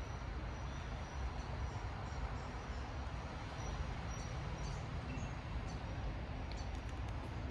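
Steady low rumble of distant city traffic, with faint, scattered bird chirps high above it.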